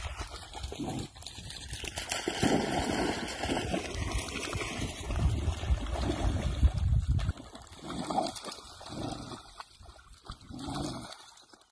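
Dogs splashing and wading through a shallow muddy pond, with irregular low rumbling that comes and goes and quietens after about seven seconds.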